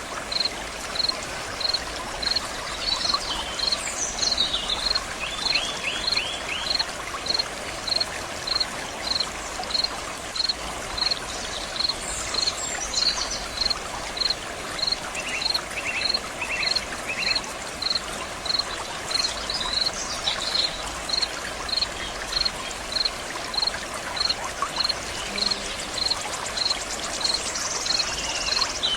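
Water running steadily in a stream with a constant rushing and trickling. Over it a high chirp repeats evenly about one and a half times a second, with a few brief bird calls scattered through.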